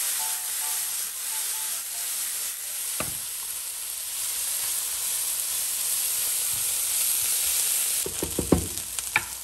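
Vegetables and mushrooms sizzling steadily in a hot frying pan as they are stir-fried, with a spatula knocking against the pan once about three seconds in and several times near the end.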